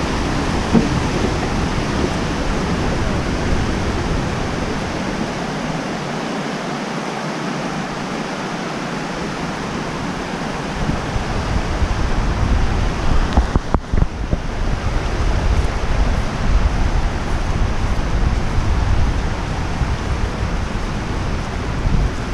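Waterfall's steady rush of falling water. About halfway through, low buffeting from wind on the microphone joins it.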